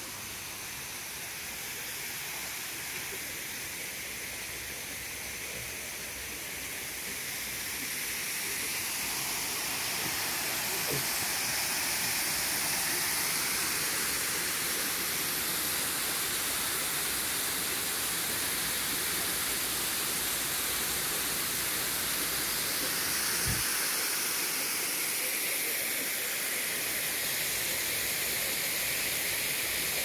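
Waterfall pouring into a pond: a steady rush of falling water that grows louder over roughly the first ten seconds, then holds.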